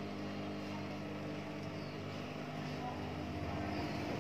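Steady electric hum of a JUKI industrial sewing machine's motor running idle, with no stitching.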